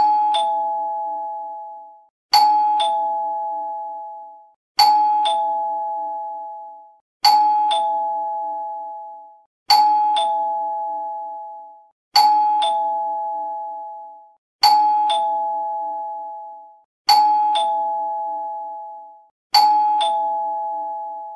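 Two-tone 'ding-dong' doorbell chime sounding over and over, nine times about every two and a half seconds. Each ring is a higher note followed by a lower one, both fading out before the next ring.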